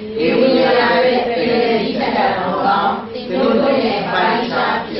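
A man's voice reading aloud over a microphone in a language other than English, in phrases broken by short pauses.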